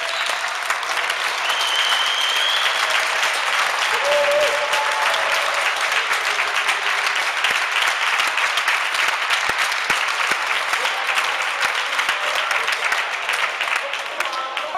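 Steady applause, from players and spectators clapping at the end of a basketball game, with a couple of brief shouts in the first few seconds.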